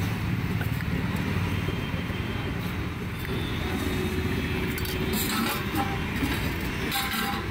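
Steady low rumble of road traffic, with a couple of short sharp taps a little past five seconds in and near the end.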